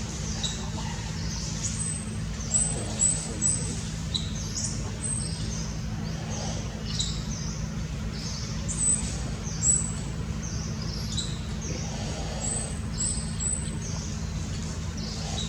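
Small birds chirping: many short, high-pitched chirps in quick series, loudest about three seconds in and again near ten seconds, over a steady low hum.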